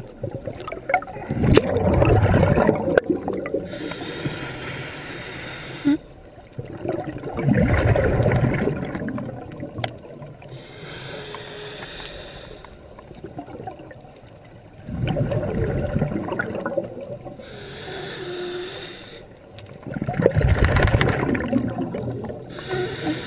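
Scuba diver breathing through a regulator underwater: a hiss on each inhale and a loud rush of exhaled bubbles, four breaths about six seconds apart.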